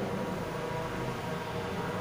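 Steady hiss of room noise in a pause between sung phrases of the call to prayer.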